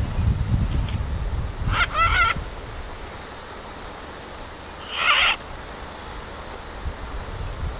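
Red-and-green macaw giving two loud, harsh squawks, one about two seconds in and another about three seconds later. Wind rumbles on the microphone through the first couple of seconds.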